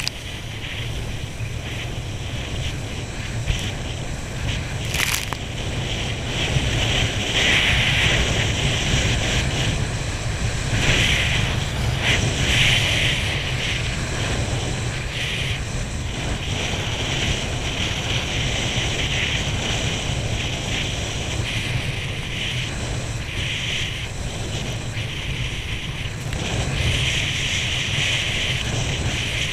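Wind buffeting the camera's microphone over the hiss and rush of water spray as a water skier is towed at speed, the spray swelling and fading, with one brief click about five seconds in.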